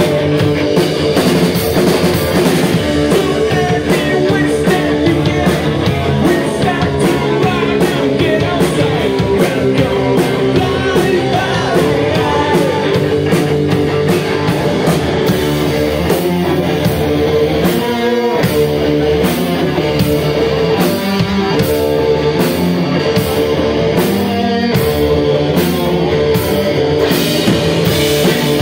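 Live rock band playing loud and driving: two distorted Les Paul-style electric guitars, electric bass and a drum kit with steady cymbal strikes.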